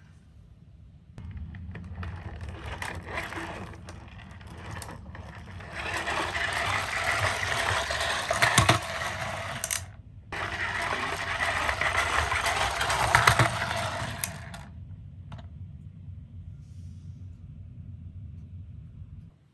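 Miniature toy cars rolling and rattling along a plastic track, with small clicks. There are two louder runs of several seconds each, broken by a short gap near the middle.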